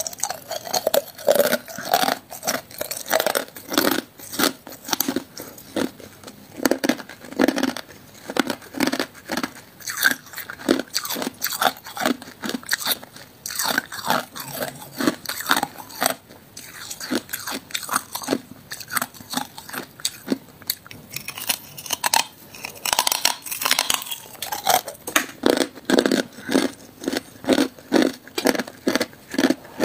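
A person biting and chewing hard ice from an ice stick: a dense, steady run of crisp crunches, several a second.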